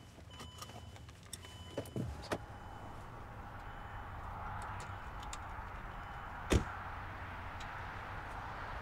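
Range Rover's driver door: a few light clicks and knocks in the first two and a half seconds, then the door shut with one sharp thud about six and a half seconds in. A soft hiss slowly grows louder throughout.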